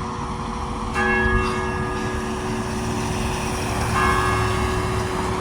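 Church bell tolling the nine o'clock hour: two strikes about three seconds apart, each leaving a long ringing hum that carries on under the next.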